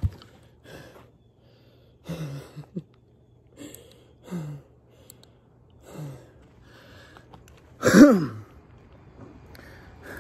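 A man breathing hard and out of breath after exertion: short, heavy breaths every second or two, with a louder groan falling in pitch about eight seconds in.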